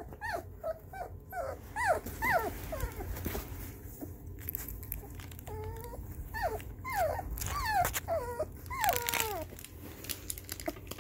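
A young puppy whimpering and whining in short, falling cries, a rapid run of them at first, then a lull, then longer drawn-out whines. It is distress at music playing in the room for the first time since the litter's ears opened.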